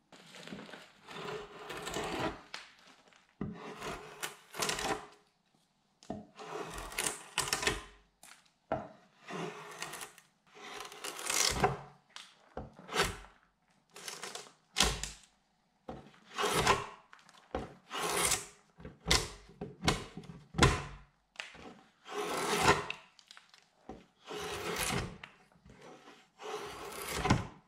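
Restored draw knife shaving a wooden beam in repeated pull strokes, each a short scraping, slicing rasp, about one a second.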